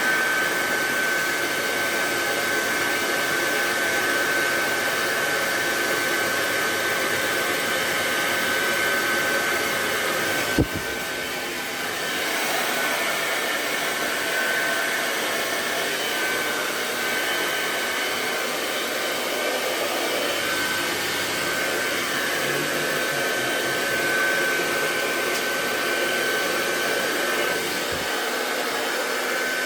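Hand-held hair dryer running steadily while blow-drying hair, a constant rushing blow with a steady high whine. One short sharp knock about ten seconds in.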